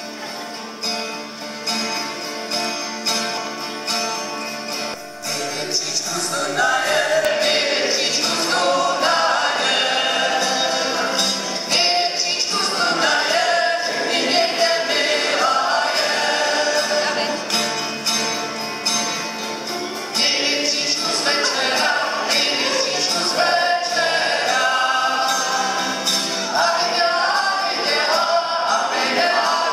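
Live group performance of a Czech folk song: acoustic guitars strummed and djembes drummed, and about six seconds in a group of voices starts singing together over them.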